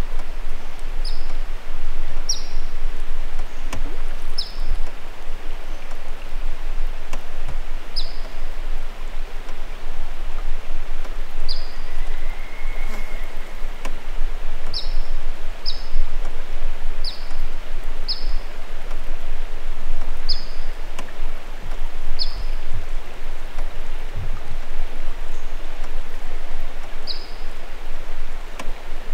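Steady water swishing and trickling around a canoe being paddled, with a few soft low knocks. Over it, a bird repeats a short, high, falling chirp about once a second.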